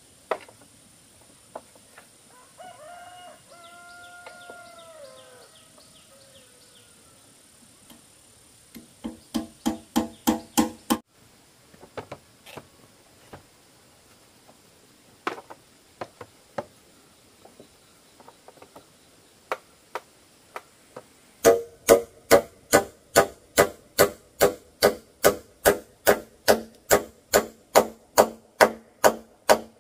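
A hand tool strikes a wooden log again and again, each blow a sharp knock with a short ringing tone. A short run of quicker strikes comes about a third of the way in. After some scattered single knocks, a long, loud, even run of about two to three strikes a second starts about two-thirds of the way in.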